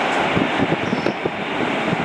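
Steady jet noise from a Boeing 747's four engines as it comes in to land, low over the runway, with gusts of wind buffeting the microphone.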